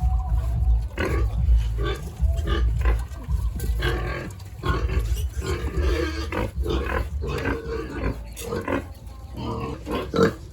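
Several pigs grunting in many short, overlapping calls, with a low rumble under the first half.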